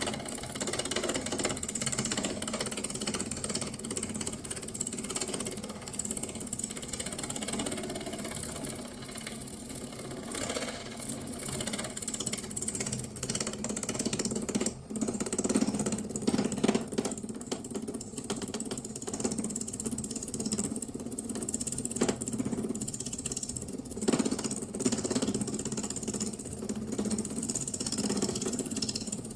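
Wood lathe running: a steady motor hum with uneven noise over it, swelling sharply a few times.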